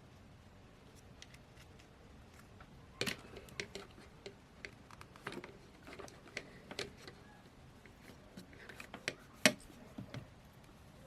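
Scattered small clicks and taps from handling a phone and small repair parts on a work surface, with one sharper click about nine seconds in.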